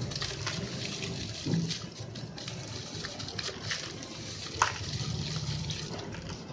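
Red sand-cement crumbling and crunching, a steady run of small crackles, with a duller thump about a second and a half in and one sharp crack about two thirds of the way through.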